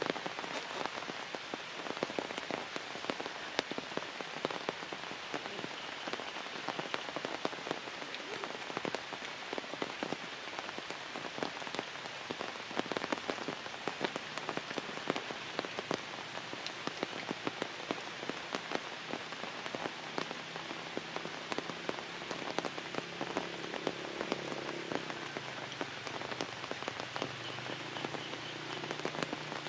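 Steady rain falling on forest leaves and branches, a continuous hiss dotted with many separate drop hits. A faint low drone joins in during the second half.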